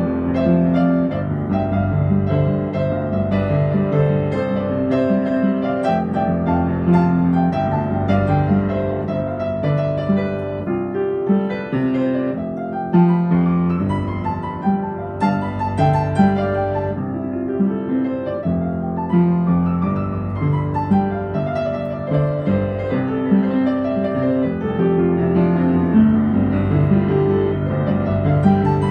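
Piano music: a flowing solo piece with runs of notes climbing and descending.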